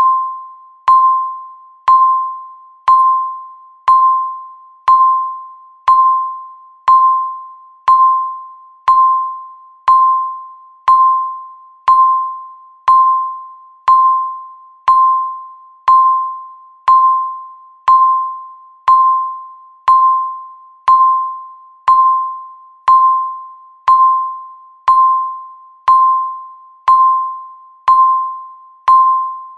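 Countdown timer beeping once a second, each beep marking one second left: a single mid-pitched electronic tone that starts sharply and fades away before the next.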